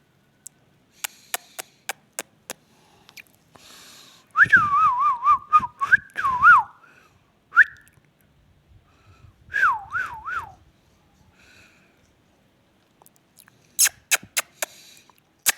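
Warbling whistles: a run of quick up-and-down trilled notes about four seconds in and a shorter one near ten seconds, with scattered sharp clicks around them and a cluster of louder clicks near the end.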